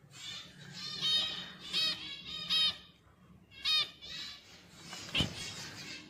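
Zebra finch giving a series of short calls, each under half a second and coming about a second apart. A single sharp knock comes about five seconds in.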